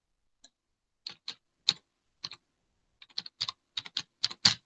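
Irregular light clicks and taps, like keys on a computer keyboard. A few come spaced apart, then a quicker run of about a dozen near the end.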